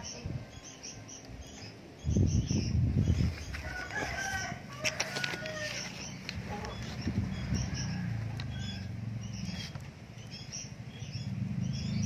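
Young caged mantenan birds giving short, high begging chirps again and again. A loud low rustle comes about two seconds in, and a low hum runs underneath after it.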